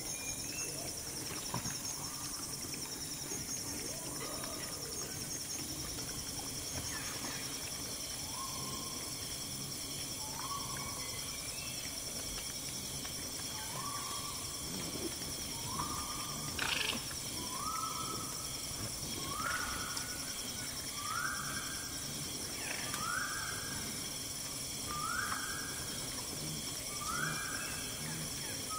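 Tropical forest ambience: a steady high insect drone, with a bird repeating a short call roughly every second and a half, each note a little higher than the last. One sharp knock about two-thirds of the way through.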